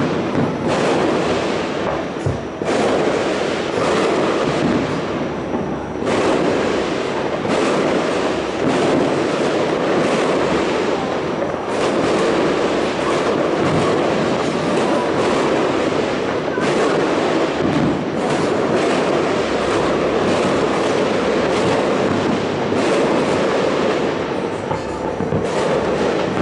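Fireworks barrage: many bangs and crackles running together into a continuous loud rumble with no pause.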